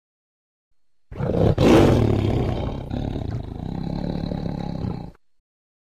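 A long animal roar. It starts about a second in, is loudest just after, then trails into a lower rumbling growl and cuts off near the end.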